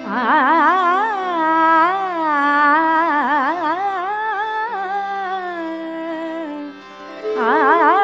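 Hindustani classical flute-and-vocal jugalbandi in raga Bhoopali: a single melodic line with quick wavering ornaments over a steady drone. The phrase fades about seven seconds in, and a new one starts just before the end.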